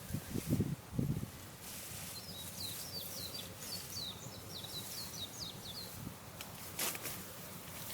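A wild bird singing a quick run of about a dozen short, high, falling notes, over field background noise. Two low thumps come in the first second, and a brief rustle near the end.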